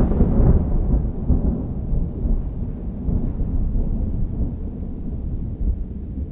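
Thunder rolling: a long low rumble that slowly dies away.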